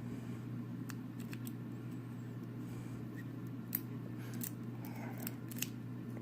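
Lock pick working the pin stack of an Abus No. 41 brass padlock under tension, giving a scatter of small, sharp metallic clicks and ticks at irregular intervals as the pins are lifted and set.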